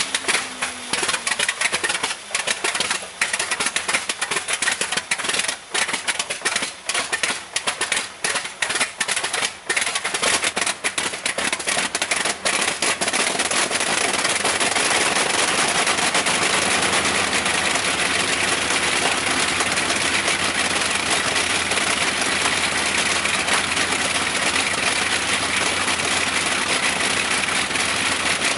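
An old engine starting: it fires unevenly in ragged pops for the first dozen seconds or so, then catches and settles into steady running.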